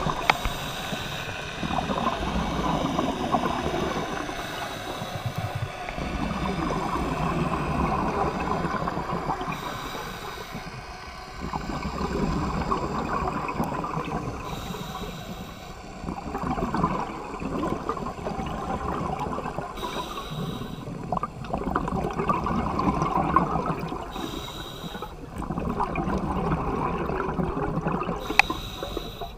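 Scuba diver breathing through a regulator underwater: a short hiss on each inhale, then a long gurgling burble of exhaled bubbles, repeating about every four to five seconds.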